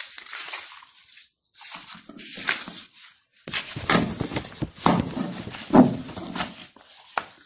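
Sheets of paper rustling and sliding across a wooden tabletop as they are gathered up and a fresh sheet is laid down, in a few irregular bursts.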